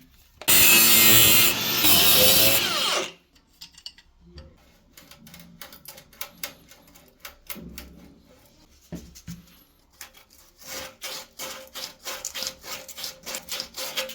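A tool runs loudly for about two and a half seconds and varies in pitch, then stops. Scattered clicks and scrapes follow, and near the end a run of regular scraping strokes at about three a second, like sawing or filing during plumbing work.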